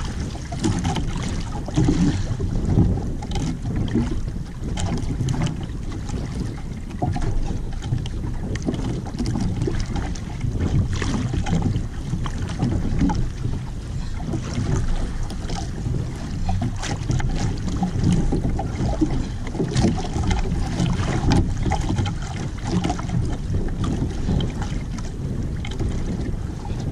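Wind buffeting the microphone and choppy sea water lapping against a small wooden outrigger boat's hull, with scattered knocks.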